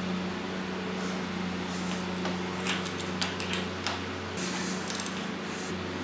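Light metallic clicks and scrapes of a wrench turning the AMC 4.2L inline-six's crankshaft by its harmonic balancer nut, over a steady low background hum. A brief hiss comes in about four and a half seconds in.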